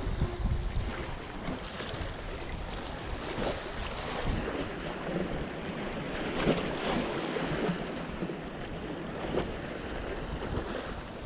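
Small sea waves lapping and splashing against the boulders of a rock breakwater, with wind rumbling on the microphone, heavier for the first few seconds.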